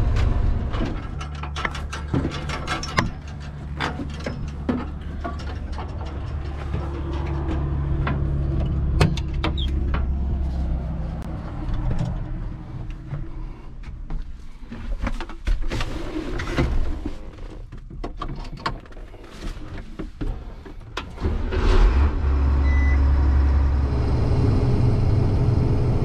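A farm vehicle's engine running with a steady low drone that grows softer through the middle and louder again near the end, with scattered knocks and rattles.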